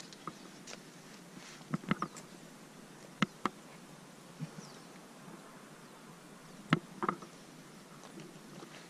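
Short, scattered clicks and scuffs of rappelling gear and boots against a rock face as a descent on rope begins, about eight in all, the loudest around the middle and near the end, over a faint steady hiss.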